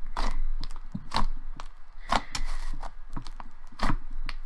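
Thick clay slime being kneaded and squeezed by hand, giving irregular squishes and small sharp pops, roughly two or three a second.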